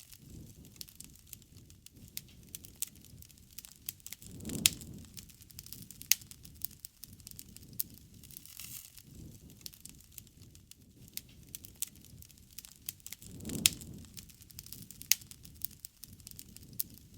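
Wood campfire crackling, with sharp pops scattered throughout and two louder pops about four and a half and thirteen and a half seconds in.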